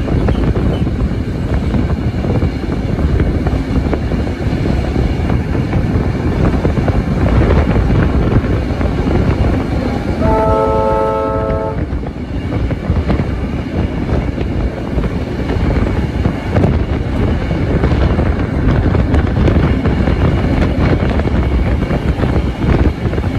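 A train running with a heavy, continuous rumble. About ten seconds in, its horn sounds once as a chord for about a second and a half.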